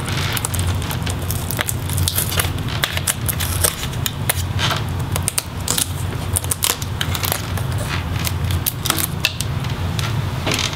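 A laptop's DC power jack and its wire harness being wiggled and pulled out of the plastic chassis: irregular small clicks, crackles and scrapes of plastic and cable, over a steady low hum.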